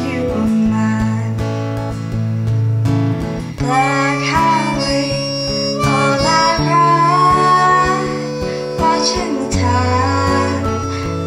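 Harmonica playing a melody over acoustic guitar in an instrumental passage of a folk song.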